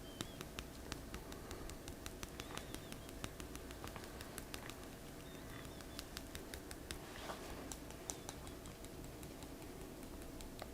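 Massage tapping: fingertips tapping quickly and lightly on the body, about four or five soft taps a second. Faint bird chirps are heard now and then.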